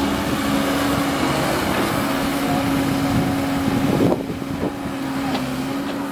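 Komatsu PC130F excavator's diesel engine running with a steady hum, and a short louder burst of noise about four seconds in.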